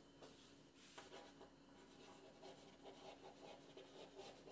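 Faint handwriting: a pen or marker making light scratching strokes and small taps as a definition is written out, mostly in the second half.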